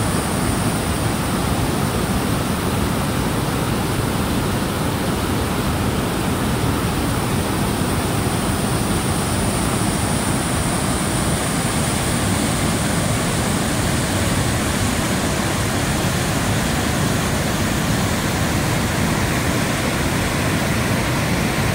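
River rapids and a waterfall, a steady rush of whitewater with no breaks.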